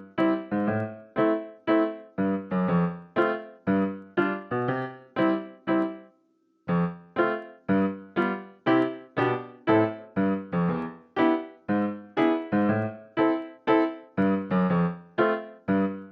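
Background music: short, quickly fading keyboard notes, about two a second, with a brief pause about six seconds in.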